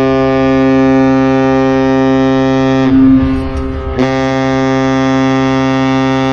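Deep, loud ship's horn blowing long, steady blasts. The blast breaks off about three seconds in and starts again a second later.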